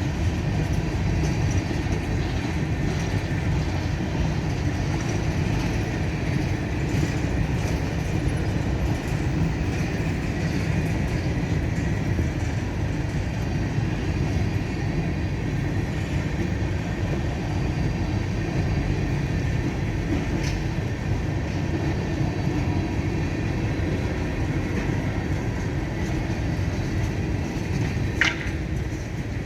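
CSX freight train rolling past slowly under a 10 mph restriction: a steady rumble of cars on the rails, with a brief high squeal near the end.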